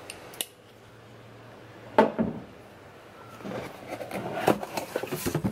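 A cardboard mailer box being handled and opened: a sharp knock about two seconds in, then scraping, rustling cardboard and small clicks as the lid is worked open.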